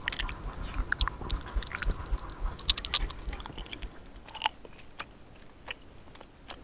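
Close-up mouth sounds of a person biting into and chewing a piece of raw fish sashimi: soft wet clicks and smacks. They come thickly for the first three seconds and grow sparse toward the end.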